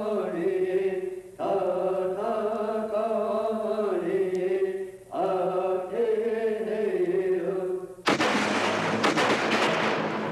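Native American chanting: a voice sings three long held phrases, each sliding down in pitch at its end. About eight seconds in, the chant cuts off and a loud, harsh burst of crackling noise takes its place.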